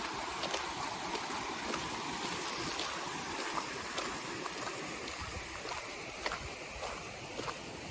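Kamogawa river water rushing as a steady wash, with light, irregular clicks of footsteps on the riverside path.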